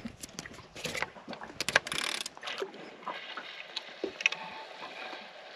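Overhead fishing reel being wound in a few turns, its gears and handle clicking, with a flurry of clicks and knocks in the first two seconds and scattered ones after: the lure is being lifted a couple of metres off the bottom.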